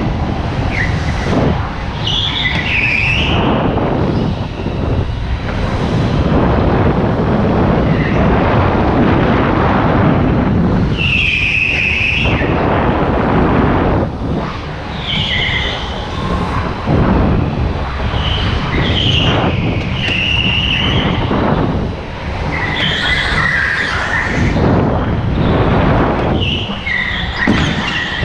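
Indoor go-kart at racing speed with a steady rushing noise from the kart and the air over the camera. Its tyres squeal briefly on the smooth track surface through the corners, about seven times.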